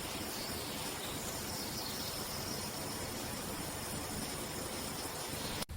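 Steady hiss of generated outdoor ambience with faint, thin high-pitched tones above it, like distant insects, cutting off suddenly near the end.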